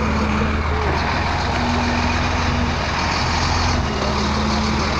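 Fire truck's engine running steadily close by: a deep, even rumble.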